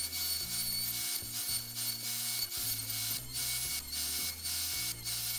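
HiKOKI cordless plunge router running at speed, its bit cutting dovetails in a wooden board as it is guided through the slots of a dovetail jig's template. It gives a steady high whine with a rasping cut that dips briefly several times as the bit moves from slot to slot.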